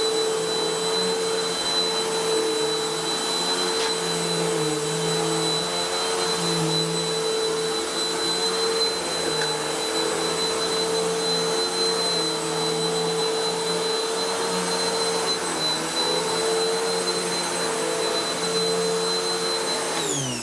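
Hoover WindTunnel T-Series upright vacuum cleaner running: a steady motor whine with a strong airflow hiss. Near the end it is switched off and the whine falls away as the motor spins down.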